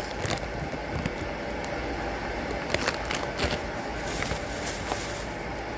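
Steady background hum with a few light knocks and rustles scattered through, as snack packages are handled.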